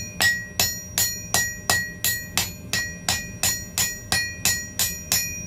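Blacksmith's hammer striking hot steel on an anvil, about three evenly paced blows a second, each followed by a short metallic ring. The blows are blending a forge-welded joint between two different pieces of steel into one.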